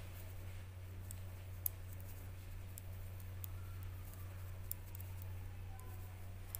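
Faint, scattered clicks of knitting needles tapping together while purling stitches, over a steady low hum.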